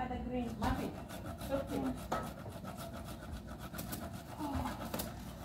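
Quick, irregular rubbing and scraping of kitchen work at the counter, as food is handled on a metal baking tray, under faint voices.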